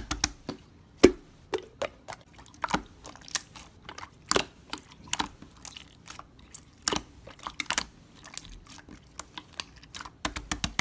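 Irregular light taps and clicks, a few a second, some sharper and louder than others.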